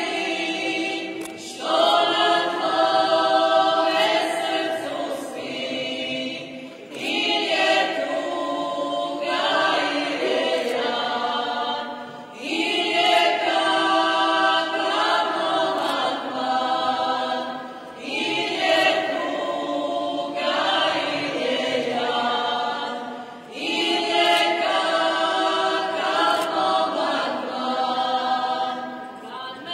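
A Croatian folk singing group, mostly women's voices with a man among them, singing a cappella in unison and close harmony. The song moves in long held phrases of about five seconds, each ending in a short breath before the next.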